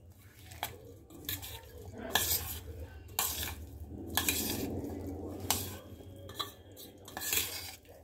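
A spoon stirring and scraping in a dish, with several sharp clinks against its side and a longer scrape in the middle.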